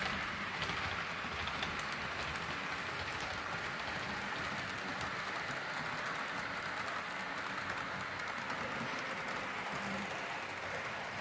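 HO scale model train running steadily on the track: the Walthers Trainline GP15-1 diesel locomotive and the freight cars it is pulling roll along in an even, unbroken noise.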